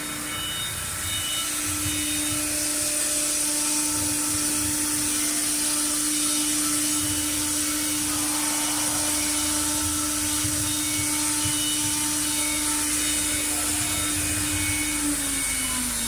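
1325C CNC router running a cut: the spindle gives a steady whine over a high hiss, with irregular low knocks from the cutting and moving gantry. Near the end the whine falls in pitch as the spindle slows.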